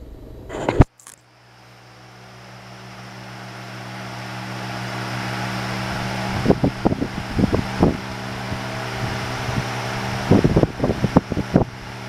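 Vintage all-metal Hunter 16-inch oscillating table fan switched up to medium: a loud click just under a second in, then the motor hum and the rush of air build over several seconds to a steady run with a solid heavy bass. A few knocks come in the middle and again near the end.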